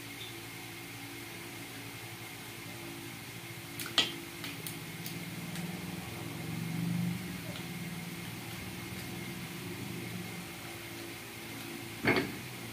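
Two sharp metal knocks, about four seconds and about twelve seconds in, as the parts of a tractor starter motor are handled during reassembly, over a steady low hum.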